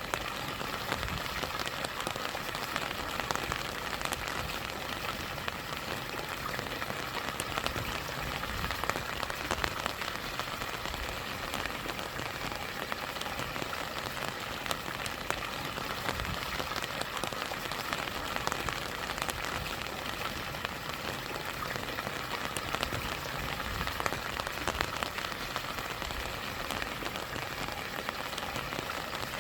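Steady rain with many small drops ticking, over the even rush of a stream and a small waterfall.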